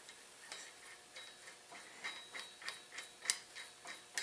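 Socket ratchet clicking in short, even strokes, about three clicks a second, the clicks growing louder about two seconds in.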